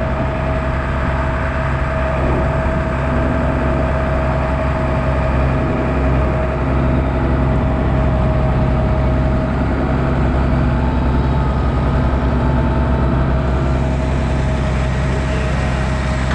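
Farm tractor engine running steadily at constant speed, with a steady whine above the low hum.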